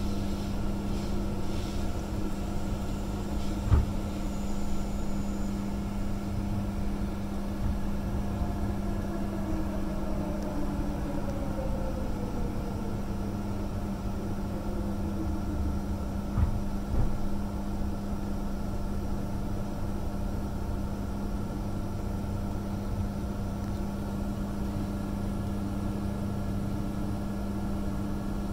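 Inside an electric multiple unit carriage, Queensland Rail's EMU01: a steady electrical hum over a low running rumble. Near the middle a whine falls slowly in pitch as the train slows, and there are two brief clunks, one a few seconds in and one just past the middle.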